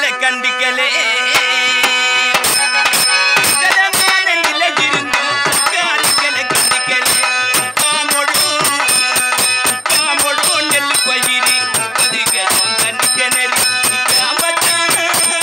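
Electronic keyboard playing a melody with steady held tones, joined about two and a half seconds in by a hand drum beating a fast, even rhythm: live accompaniment for a Tamil village drama troupe.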